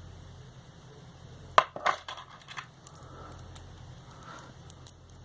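Metal clicks and clinks from a puzzle lock and its loose metal pieces being handled: two sharp clacks about one and a half seconds in, then lighter scattered taps, over a low steady hum.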